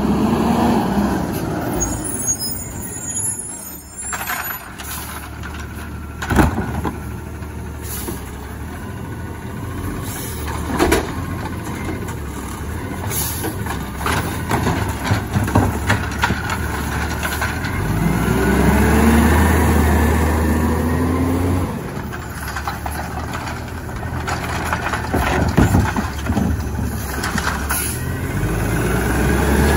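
AutoReach automated side-loading garbage truck working a curbside pickup: the diesel engine runs throughout and rises in pitch twice, near the middle and at the end, as the hydraulic arm lifts and tips a wheeled cart. Sharp knocks come as the cart is gripped, shaken out and set back down, with air-brake hisses.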